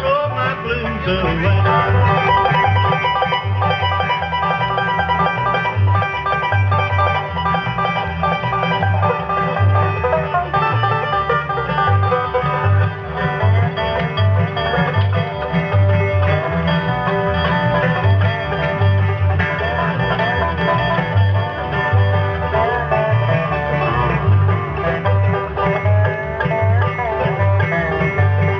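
Bluegrass band playing an instrumental tune, with banjo picking and guitar over a steady, evenly pulsing bass.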